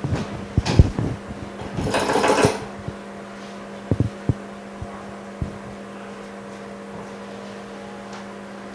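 Clicks and light knocks of small tools and parts being handled, thickest in the first three seconds, with a short hissing burst about two seconds in, over a steady low hum from bench equipment.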